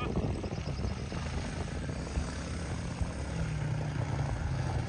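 Small dirt bike engine running at low speed, a steady low hum that shifts a little in pitch about three and a half seconds in.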